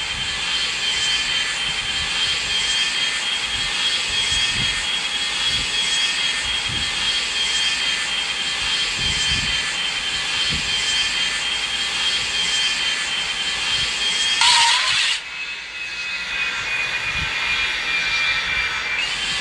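Boeing 757 jet engines running, a steady high whine over a rush of air. About fifteen seconds in comes a brief loud rush of noise, after which the whine sits a little lower and slowly falls.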